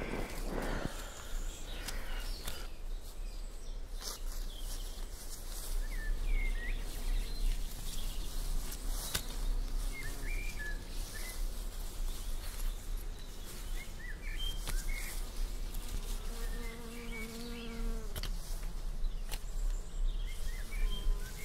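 A flying insect buzzing close by for about two seconds near the end, as a steady pitched drone. Underneath runs a low rumble with scattered faint clicks and a few short bird chirps.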